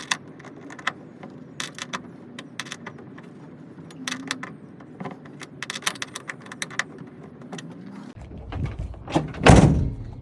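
Small metal clicks and rattles of screws and hand tools being handled while taillight screws are swapped, then a low rumble building to one loud thump near the end.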